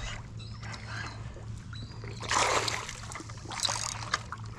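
A hooked flounder splashing at the water's surface beside a kayak as it is reeled in: two short splashes, about two and a half seconds in and again about a second later.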